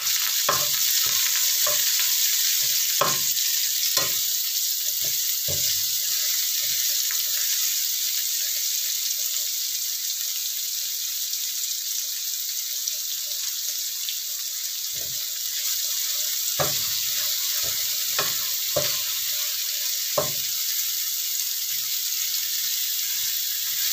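Ground spice paste, tomato, lemongrass, ginger and shallots sizzling steadily in hot oil in a nonstick frying pan, sautéing until fragrant. A spatula scrapes and knocks against the pan through the first few seconds and again in the last third.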